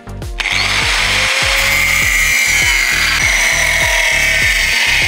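Angle grinder with an abrasive cut-off disc cutting through a flat steel strip held in a vise, starting about half a second in and running steadily with a high whine.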